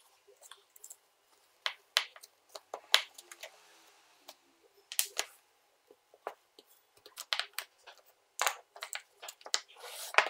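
Irregular clicks and knocks of small plastic and metal parts being handled as an impact driver's motor, trigger switch and gear housing are lifted out of its plastic housing half, with a few brief rubbing scrapes.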